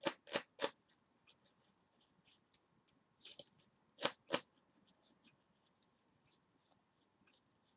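Faint handling of sleeved trading cards: scattered soft clicks and taps with brief rustles, three quick clicks at the start and two stronger taps just after four seconds in.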